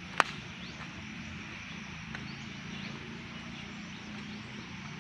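Quiet rural outdoor background with a faint steady low hum and a few faint high chirps, broken by a single sharp click shortly after the start.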